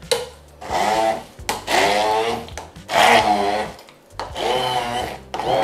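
Immersion (stick) blender puréeing peeled bananas with lemon juice in a plastic jug. It runs in four short bursts of about a second each, and its motor pitch wavers under the load of the fruit.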